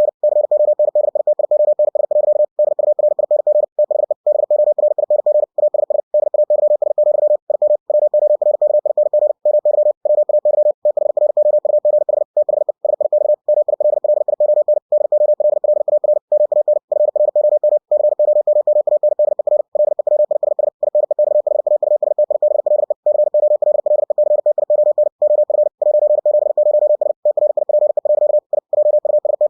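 Morse code (CW) sent very fast at 60 words per minute: a single steady mid-pitched tone keyed on and off in rapid dits and dahs, with brief gaps between words. It is computer-generated by the ebook2cw program from the text of a book.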